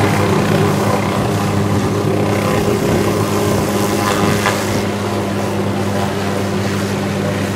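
Hughes OH-6 Loach helicopter running on the ground, its turbine engine and turning main rotor making a steady, even hum that eases off slightly over the few seconds.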